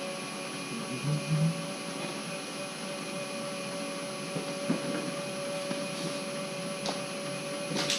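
Power tool clamped in a vise, running steadily with an even whine, for cleaning bolts. A couple of low thumps come about a second in, and a few short clicks or taps follow in the second half, the sharpest near the end.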